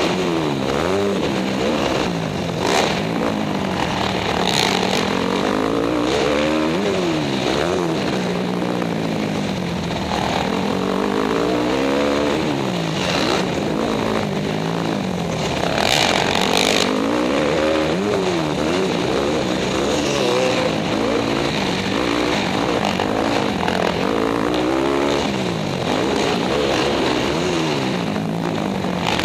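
Dirt bike engine heard from the rider's helmet, revving up and falling back again and again as the throttle opens and closes over the track, every second or two.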